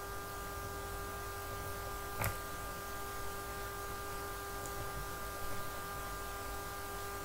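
Steady electrical hum of several fixed tones over a faint even hiss, with a single light click about two seconds in.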